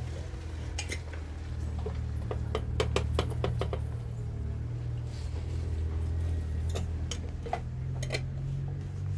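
Hard objects clinking and knocking, with a quick run of clinks about two to three and a half seconds in and a few single ones later, over a steady low hum.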